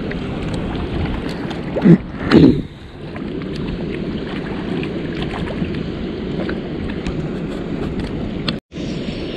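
Steady rushing outdoor noise, with two brief loud bumps about two seconds in; the sound cuts out for a moment near the end.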